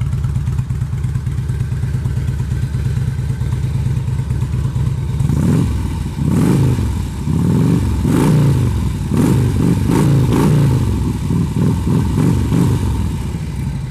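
2006 Harley-Davidson Street Glide's Twin Cam 88 V-twin running through Rinehart exhaust, idling steadily at first. From about five seconds in it is revved in a series of quick throttle blips, each rising and dropping back to idle.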